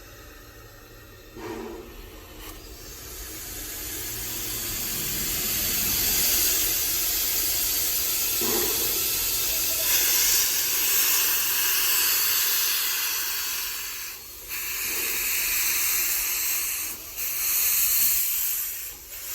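Steam locomotive #3 Roger E. Broggie venting steam with a loud, steady hiss that builds over the first few seconds, then dips briefly a few times near the end.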